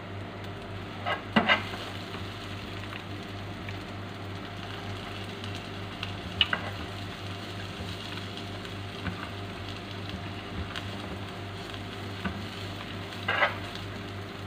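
Oil sizzling steadily in a nonstick frying pan as onion, garlic and ginger sauté and julienned carrots go in, with a metal spoon knocking and scraping against the pan a few times.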